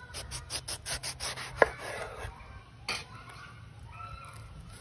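Kitchen knife shaving the rough green skin off a wedge of young breadfruit on a wooden board: a quick run of scraping strokes, about six a second, for about two seconds. A sharp click and then a single knock of the blade on the board follow.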